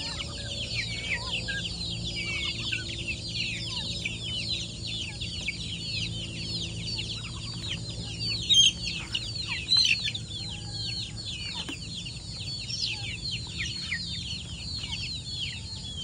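A flock of young kampung chickens peeping without pause: many rapid, high, falling chirps overlapping, with a couple of louder calls near the middle.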